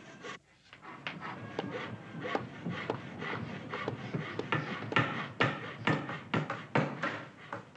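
Sharp wooden knocks and clatter from boards and offcuts being handled and worked by hand. The knocks come irregularly at first, then about twice a second and louder in the second half.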